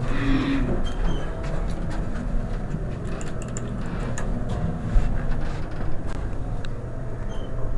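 Montgomery hydraulic elevator running: a steady low hum with scattered light clicks and a sharper knock about five seconds in.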